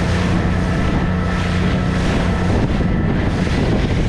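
Small motorboat running at speed: a steady engine hum under wind buffeting the microphone and water splashing off the hull.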